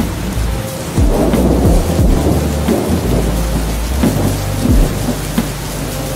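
Steady rain with thunder rolling through, the rumble building about a second in, over a low steady drone.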